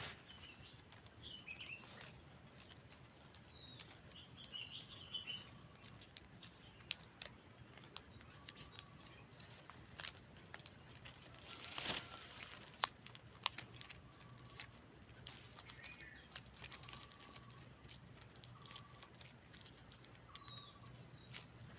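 Faint birdsong: one bird repeats a short chirp every second or two while others twitter higher, with scattered light clicks and a brief louder rustle about twelve seconds in.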